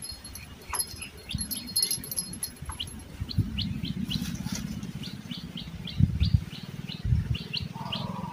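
A bird calling in a quick series of short, high chirps, about three a second, with a few low knocks from handling on the wooden boat.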